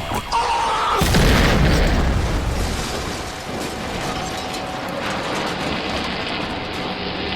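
A loud explosion-style boom sound effect about a second in, dying away into a steady rushing rumble.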